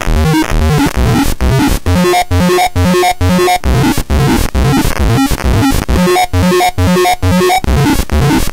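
Homemade circuit-bent noise synthesizer, its step sequencer driving a VCO and LFO, playing a loud looping pattern of harsh, buzzy chiptune-like notes whose pitch jumps from step to step, about two steps a second, over a noisy hiss. It stops abruptly at the very end.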